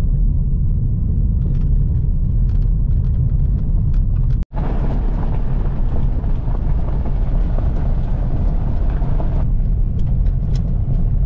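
Honda Civic driving on a dirt road, heard from inside the cabin: a steady low rumble of tyres and engine with a few faint ticks. The sound drops out for an instant about four and a half seconds in.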